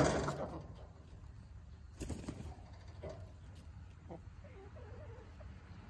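Chickens making soft, low clucking calls. A loud rustling burst comes right at the start and fades within half a second, and a short scratchy rustle follows about two seconds in.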